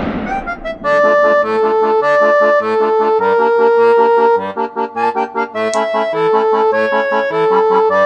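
Instrumental background music: a bouncy melody over a steady, regular bass beat. During the first second the tail of a loud bang, which began just before, fades out under it.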